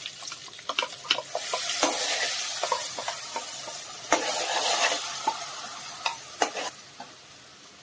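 Ground coconut-onion paste sizzling as it is dropped into hot oil in a kadai, with a steel spoon clicking and scraping against a plastic mixer-grinder jar as the paste is scraped out. The sizzle is loudest in the first few seconds and fades toward the end.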